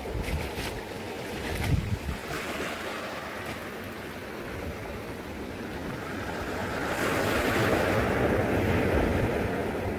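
Sea waves breaking and washing over a pebble beach, a continuous wash that swells as a bigger wave breaks about seven seconds in. Wind buffets the microphone now and then with low thumps.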